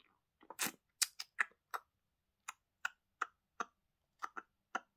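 A series of about a dozen short, sharp clicks, uneven in spacing, some coming in quick pairs.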